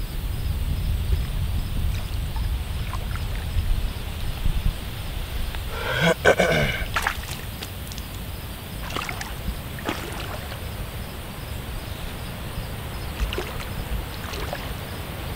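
Low, fluctuating rumble of wind on the microphone, with water sloshing as a hooked bullfrog is pulled in through shallow muddy water by a wading angler. About six seconds in there is a short voice-like call, followed by a few sharp clicks.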